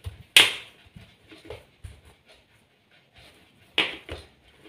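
Hands kneading and pressing soft flour dough on a ceramic plate: quiet squishing and light knocks, with two short sharp sounds, one about half a second in and one near the end.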